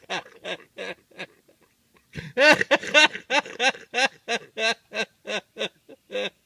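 A man laughing in quick repeated bursts, about three to four a second. One run dies away about a second in, then a louder fit of laughter starts about two seconds in and tapers off near the end.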